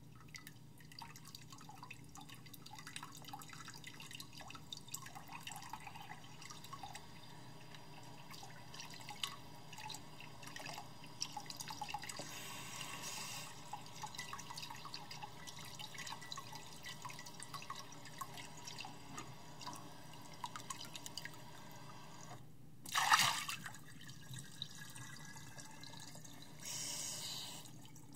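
Water dripping and trickling in a basin, with three short louder splashes, the loudest about five seconds before the end.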